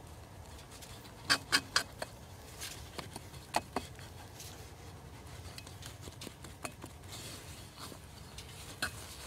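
A metal spoon stirring and scraping cake mix in a cast-iron Dutch oven, with scattered clicks where the spoon knocks the pot. A quick run of three clicks comes about a second in.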